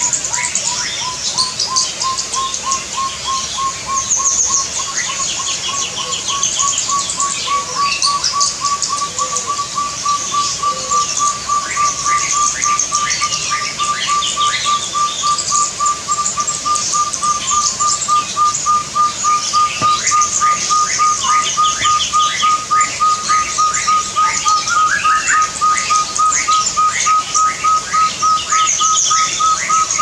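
Puyuh gonggong hill partridge calling: a long series of short whistled notes that slowly climb in pitch and come faster and faster. Smaller birds chirp higher up over it.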